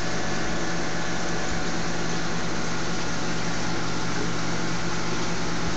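Saltwater aquarium pumps and filtration running: a steady low hum over an even rush of moving water.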